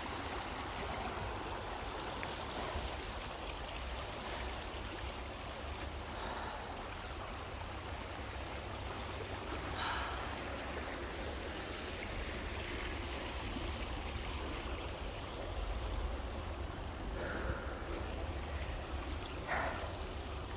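Steady rush of flowing river water, with a low rumble underneath and a few faint short sounds about halfway and near the end.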